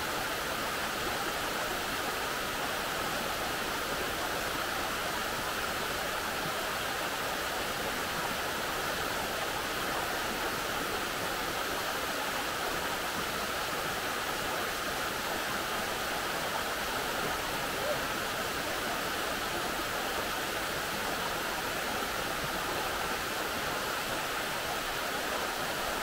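Waterfall pouring over a rock slab into a pool: a steady, even rush of water.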